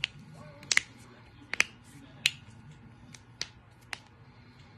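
Joints cracking: a quick series of about eight sharp pops, some in close pairs, the loudest in the first two and a half seconds and fainter ones after.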